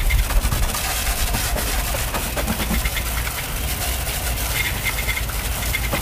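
Water jetting from a pistol-grip garden hose nozzle onto a car's wheel and tyre, rinsing it: a steady hiss and spatter of spray.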